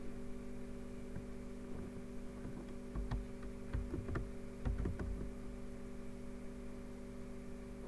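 Steady electrical hum, with a few faint computer keyboard key clicks about three to five seconds in.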